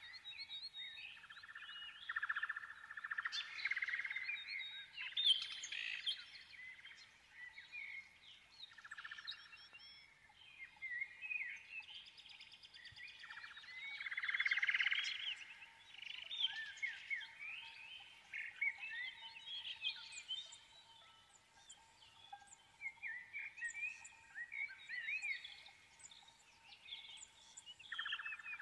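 Several small birds chirping and singing almost without pause, a dense mix of quick rising and falling whistles and buzzy trills, with short high chirps repeating in the second half.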